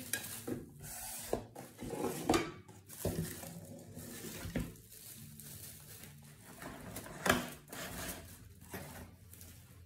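Kitchen handling noises: cling film crinkling and a metal baking tray shifted and knocked on a wooden table, with scattered clicks and one sharper knock about seven seconds in.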